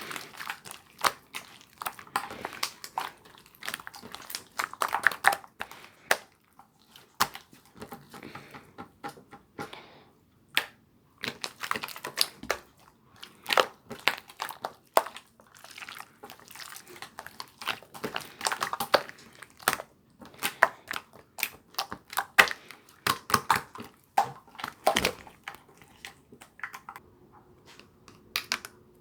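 Irregular crinkling and clicking handling noises, many sharp clicks close together, with brief pauses.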